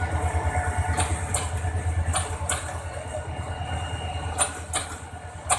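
Diesel commuter train's engine running with a low throbbing rumble that slowly fades as the train pulls away, with a few sharp clicks.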